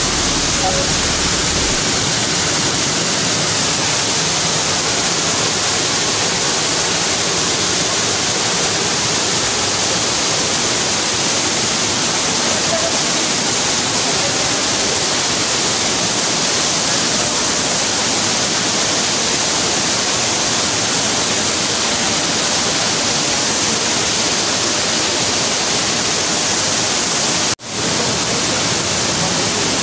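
Steady rush of a tiered waterfall pouring into its pool, loud and unbroken, with a momentary break near the end.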